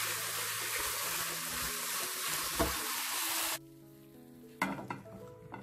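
Beef and leek sizzling loudly as they are stir-fried in a non-stick wok in the final toss after the thin cornstarch thickening, with a sharp knock of the spatula on the pan about two and a half seconds in. The sizzle cuts off suddenly just past halfway, leaving soft background music and two sharp clatters of the spatula against the pan.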